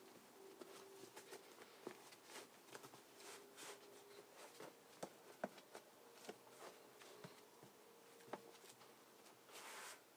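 Faint rustling and scuffing of gloved hands rubbing and pressing a freshly glued carpet patch down onto a truck cab's rubber floor, with a few light taps. A slightly louder brushing comes near the end.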